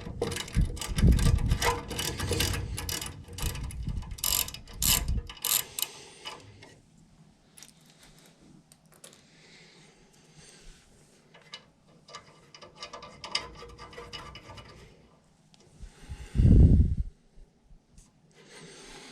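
Hand-tool work on a furnace: a run of rapid metallic clicking for about six seconds, then quieter handling of parts, with one low thump near the end.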